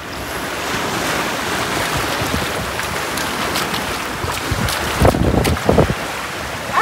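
Small waves washing onto a sandy beach, with wind buffeting the microphone; a few heavier gusts about five seconds in.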